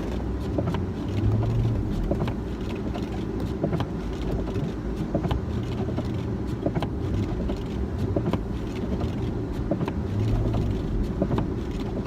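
1996 Ford Bronco's V8 engine running and revving up in three surges as the truck tries to drive out of deep snow in two-wheel drive without getting going: the truck is stuck.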